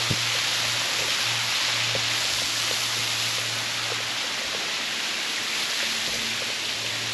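Small waterfall splashing into a creek, a steady, even rush of falling water.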